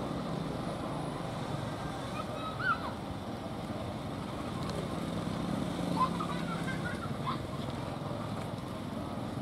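Diesel locomotive hauling a train of tank wagons, its engine running with a steady low drone as it rolls slowly past. A few short high chirps sound around three seconds in and again around six seconds in.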